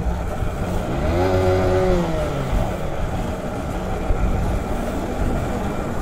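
Motorcycle on the move, with a steady low rumble of wind and road on the rider's microphone; about a second in, an engine note rises and then falls again over a second and a half.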